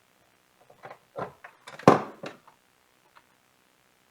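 A few light clicks and knocks of handling, with one sharp clack about two seconds in, as a coffee maker's plug is pushed into a portable power station's outlet.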